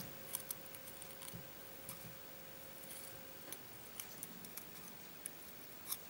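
Faint, scattered light ticks and clicks of a small metal tool picking at the fine wires and braided screen of a USB lead.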